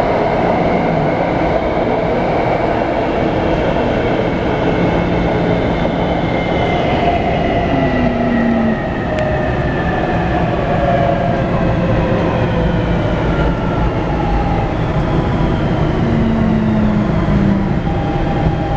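Taipei Metro C321 refurbished EMU in motion, heard from inside the car: running and rail noise with the traction inverter's whine, a stack of tones that hold steady, then glide downward together from about six seconds in as the train slows. This inverter sound is the abnormal noise of this refurbished train.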